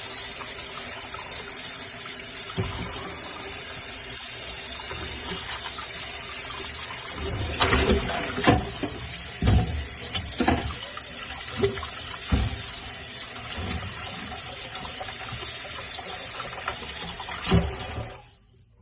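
Kitchen tap running steadily into a sink while lemons and ginger are washed by hand, with irregular knocks and bumps through the middle and once more shortly before the end. The water cuts off suddenly near the end as the tap is shut.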